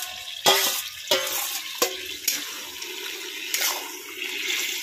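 A metal spatula clinks and scrapes against a steel bowl and the rim of an iron karai, a few sharp knocks in the first two seconds, then stirs through wet, simmering taro greens with a steady bubbling sizzle and one more knock a little later.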